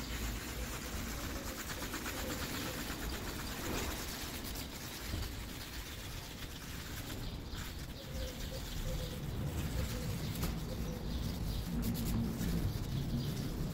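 A sanding disc on a hand-held stamper tool rubbing back and forth over a wet, cloudy plastic headlight lens: the wet-sanding stage of a headlight restoration, taking the lens down to an even dull surface.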